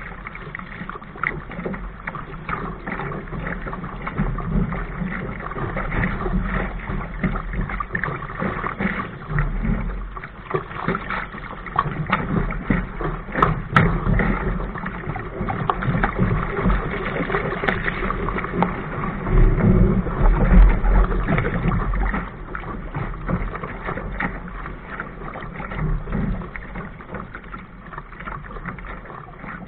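Sea water rushing and splashing along the hull of a small sailing dinghy moving fast through chop, with a gusting low rumble of wind on the microphone, loudest about two-thirds of the way through.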